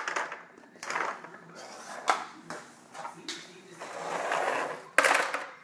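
Small plastic toys clattering and scraping on a hardwood floor as a toddler handles them, with a sharp knock about five seconds in.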